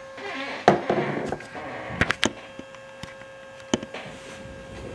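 Handling noise from a hand fumbling with the recording device right at the microphone: rustling and several sharp knocks and clicks, over a faint steady hum.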